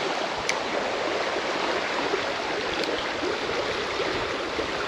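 Shallow, rocky trout stream running over a riffle: a steady, even rush of flowing water.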